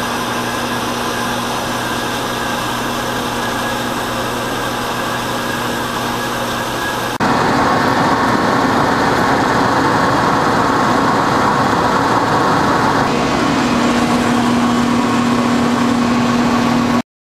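Horizontal metal-cutting band saw running on a steel axle tube, a steady machine hum. About seven seconds in it cuts suddenly to a louder metal lathe turning the tube's outside diameter, and near thirteen seconds to the lathe cutting the tube's inside diameter for the seal. The sound stops abruptly just before the end.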